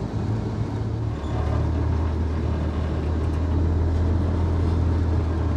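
Dodge M37 truck's engine running with a steady low drone as the truck is driven slowly through a tight turn, with a brief dip about a second in.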